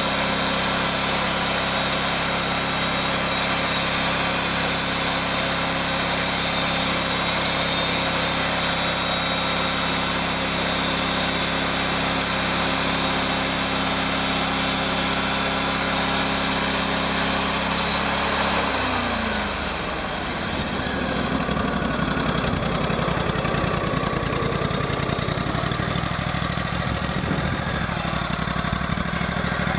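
Portable band sawmill's engine running steadily at high speed, then throttled down about two-thirds of the way through, its pitch falling and the high whine dropping away as it settles to a rough, lower idle.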